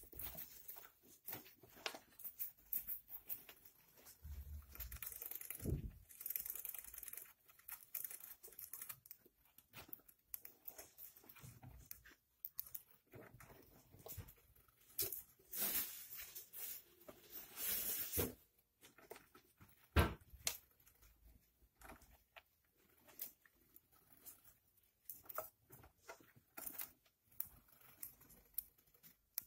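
Gerbils scratching and rustling in wood-shaving bedding, with bouts of small crackly nibbling and gnawing. The scratches come irregularly, with louder spells, and there is a single sharp knock about two-thirds of the way through.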